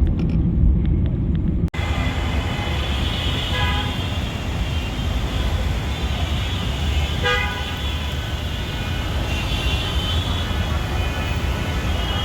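Road traffic running steadily, with vehicle horns honking several times in short blasts.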